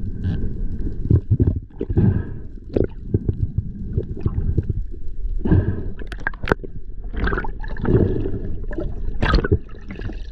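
Water rushing and gurgling around an underwater camera as a freediver is towed along by a speared wahoo. The noise comes in uneven surges, with scattered sharp clicks and knocks.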